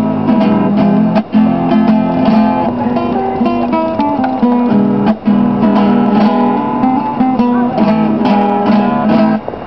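Acoustic guitar played solo in an instrumental passage after the last sung line of a folk song, with short breaks about a second in and about five seconds in, stopping just before the end.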